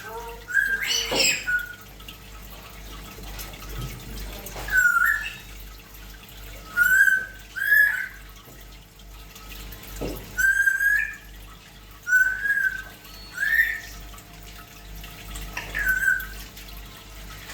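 African grey parrot whistling: a string of short, bending whistle notes, one every second or two.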